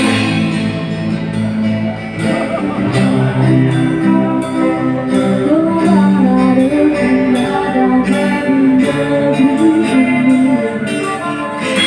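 Live reggae band playing: sustained guitar and melodic notes over a steady, evenly repeating beat.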